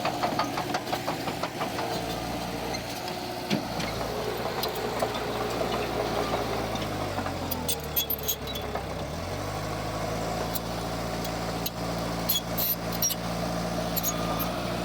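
Heavy diesel engine of earthmoving machinery running under load, slowing and picking up again about halfway through, with scattered sharp clanks and clicks.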